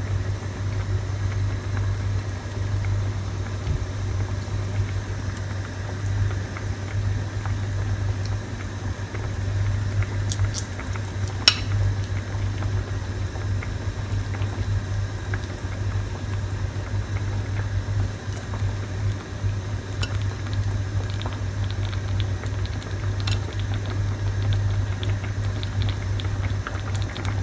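Fish pieces in coconut-milk gravy bubbling at a simmer in a pan on a gas burner, a steady low rumble under the bubbling, with a few faint light clicks.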